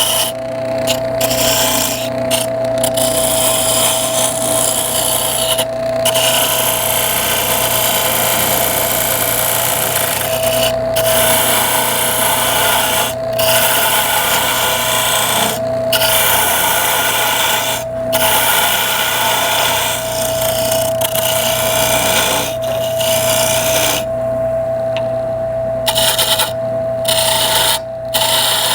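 Wood lathe running with a steady motor whine while a turning tool cuts a spinning wenge blank, a scraping hiss that stops briefly every few seconds.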